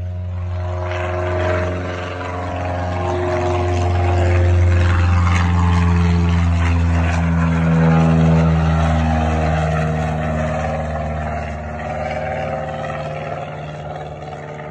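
Cessna 172's engine and propeller at full takeoff power as it climbs out and passes by, a steady drone whose pitch slowly falls, over a constant low hum.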